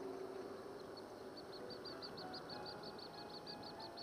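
A small bird's rapid trill: short high chirps repeated evenly, about six a second, starting about a second in.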